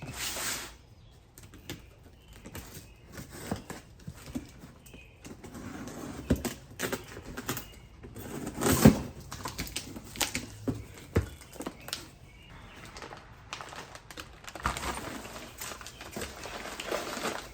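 Irregular clicks, knocks and rustling from tools and metal parts being handled at a workbench, with the loudest knock about halfway through.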